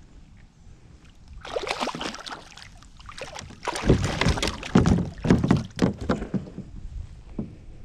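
Hooked catfish thrashing and splashing at the water's surface beside a kayak as it is reeled in. The splashing starts about a second and a half in, comes in repeated irregular bursts, is loudest around the middle and dies away near the end.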